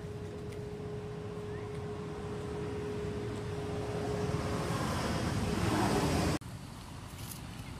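Road vehicle passing: a steady hum that swells louder over a few seconds, then cuts off suddenly about six seconds in.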